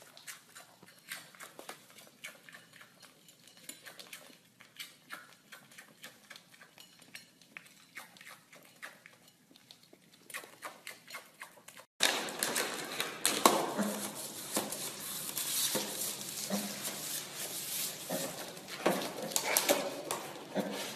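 A mini piglet eating small cereal pieces off a ceramic plate: quiet, scattered clicks and crunches of snout and teeth against the plate. About twelve seconds in the sound turns abruptly louder, with rustling and clicks as the piglet pushes a red plastic bag across a wooden floor.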